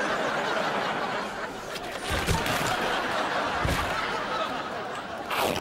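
Studio audience laughing at a sight gag, with two dull low thumps partway through.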